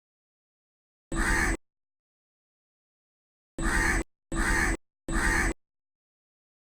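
Crow cawing: a single caw, then about two and a half seconds later three caws in quick succession, each harsh and about half a second long, with dead silence between them.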